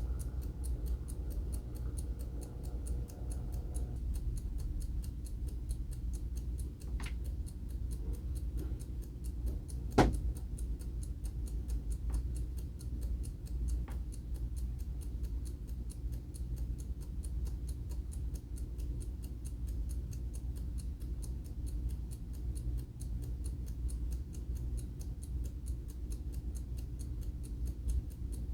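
Seiko Diskmate hand-wound mechanical alarm clock ticking steadily with fast, even beats. One sharp click stands out about ten seconds in, with a few fainter clicks around it.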